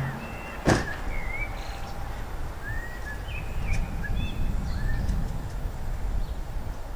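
Small birds chirping in short high notes over a steady low rumble, with one sharp click a little under a second in.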